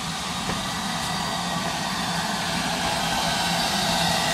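Steam locomotive giving a steady hiss of steam over a low hum, slowly growing louder.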